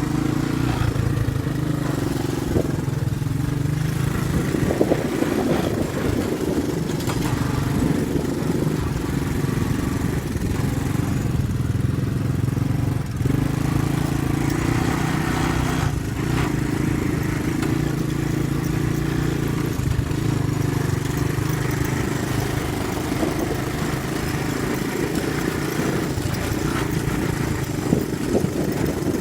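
An engine running steadily throughout, its pitch shifting up and down slightly a few times.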